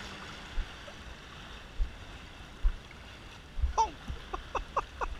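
Shallow seawater lapping and swishing, with a few low thumps in the first half. Near the end comes a quick run of short high-pitched calls, about four a second.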